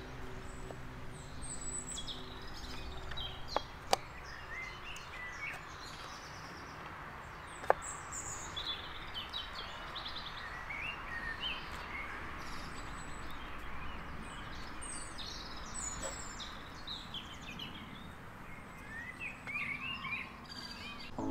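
Wild birds chirping and calling over a steady background hiss, with a few sharp knocks, two close together about 4 seconds in and one near 8 seconds, as the baked rolls are handled in the Omnia oven pan.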